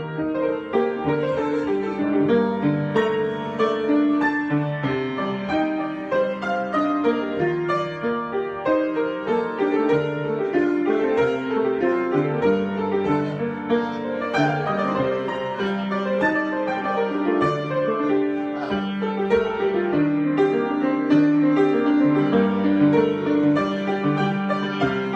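Piano improvisation, a continuous flow of notes and chords.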